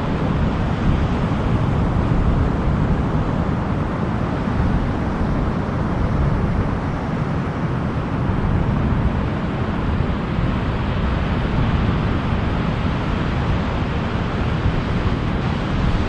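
Wind buffeting the microphone over the wash of surf: a steady, uneven rumble and rush with no distinct events.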